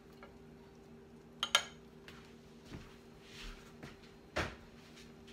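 Dishes clinking as a plate is handled: a sharp double clink about a second and a half in and a single knock a little past four seconds, with a few lighter ticks, over a faint steady hum.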